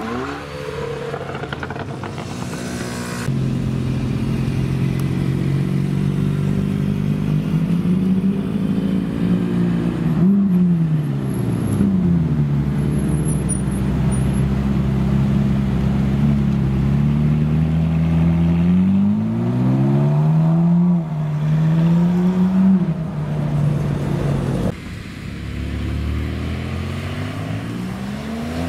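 Car engines: a car drives past briefly, then a Ferrari 458's naturally aspirated V8 runs near idle for about twenty seconds with several throttle blips, its pitch sweeping up and falling back. Near the end the engine sound drops away to quieter traffic noise.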